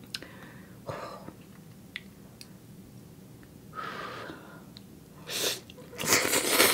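A person slurping ramen noodles in through the lips, loudly, in a short burst and then a longer one near the end, after a softer breath over the noodles about four seconds in. A few light clicks of chopsticks against a ceramic bowl come before.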